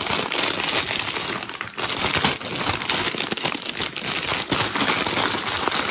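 Clear plastic bag of Lego bricks crinkling continuously as it is handled and moved about.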